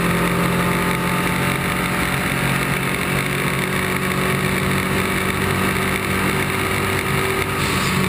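Lancia Delta Integrale's turbocharged four-cylinder engine running at speed, heard through a camera mounted low on the outside of the car, mixed with heavy wind and road noise. The engine pitch holds fairly steady.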